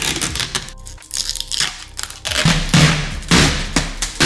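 Plastic packing material being pulled off a new resin 3D printer and crumpled: irregular crackling and scraping, louder in the second half.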